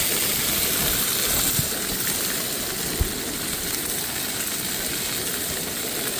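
Ribeye steak sizzling in a frying pan, a steady hiss with a small click about three seconds in.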